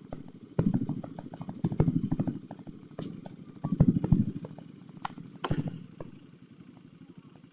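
Motorcycle engine idling with a rapid, even exhaust pulse, rising briefly about four times as the throttle is blipped.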